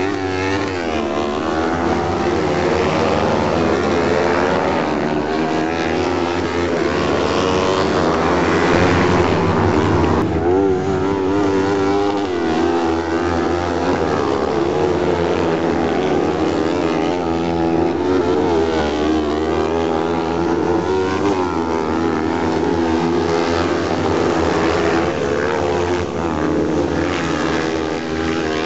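Several autocross sprint car buggies racing on a dirt track, their engines revving high and overlapping, pitch rising and falling as they accelerate through and out of a corner.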